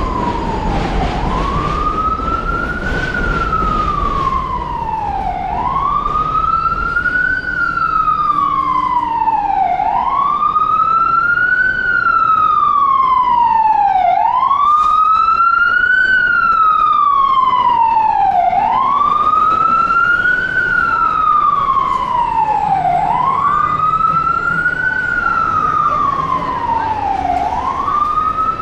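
Emergency vehicle siren sounding a slow wail: each cycle rises quickly and falls back more slowly, repeating about every four and a half seconds. It grows louder a few seconds in and eases slightly near the end.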